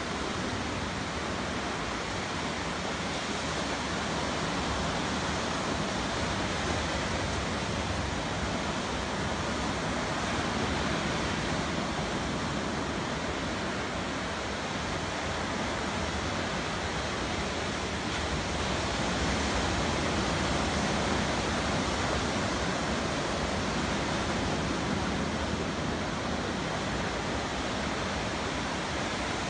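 Sea surf breaking on a sandy beach: a steady rush of waves that swells and eases slowly.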